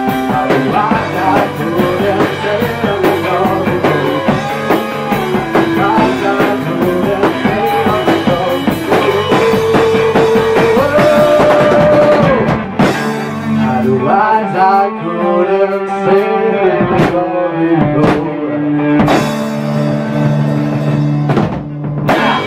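Rock band playing: distorted electric guitars, bass guitar, a drum kit and sung vocals. About 13 seconds in the steady drumming stops, leaving held guitar chords with a few separate drum hits.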